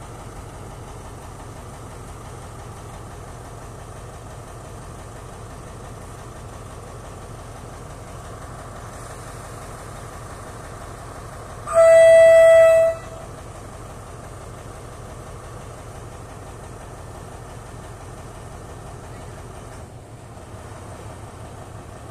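Alsthom diesel locomotive idling steadily, sounding one loud horn blast of about a second roughly halfway through.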